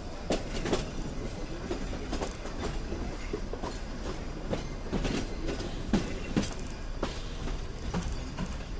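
Nilgiri Mountain Railway toy train running on the track: irregular knocks and rattles of the wheels on the rails, with two short high squeaks from the wheels, about three seconds apart.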